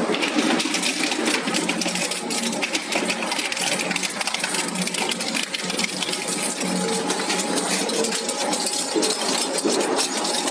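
Industrial twin-shaft shredder's rotating cutter discs tearing through thin scrap metal: a dense, continuous crackling clatter of metal over a steady machine hum.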